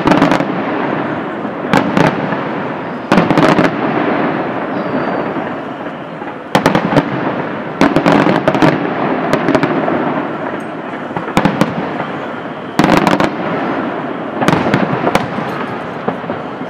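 Aerial fireworks display: repeated shell bursts, some coming two or three close together, over a constant din of crackling between them.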